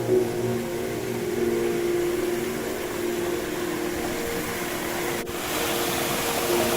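Background music of soft sustained tones over a steady hiss. About five seconds in, the sound cuts suddenly and a louder even rushing hiss takes over.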